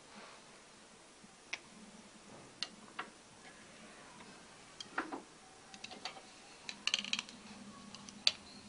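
Scattered light clicks and taps of small objects being handled, with a soft knock about five seconds in and a quick run of clicks around seven seconds.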